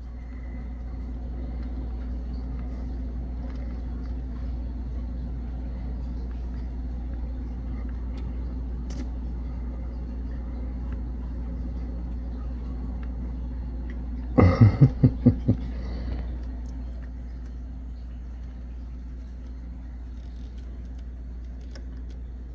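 Steady low hum of running machinery, easing slightly about two-thirds of the way in, with a quick run of about six loud pulses at about 14 seconds.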